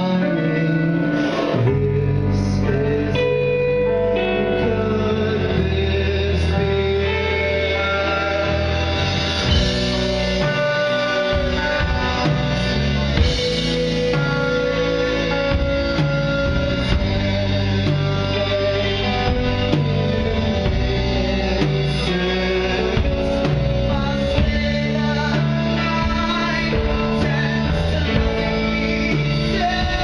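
Rock band playing live, with a man singing over bass guitar, guitars, keyboard and drums.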